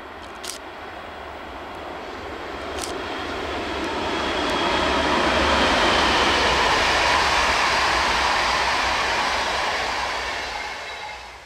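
Electric-locomotive-hauled RegioJet passenger train passing by: wheel and rail rumble swells to a peak about halfway through and fades near the end. A thin high tone rides on it at the loudest part, and a couple of sharp clicks come in the first few seconds.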